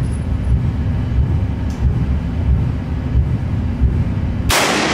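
A steady low rumble, then, about four and a half seconds in, a single loud rifle shot from an 1873 Sharps single-shot rifle, echoing off the concrete walls of the indoor range.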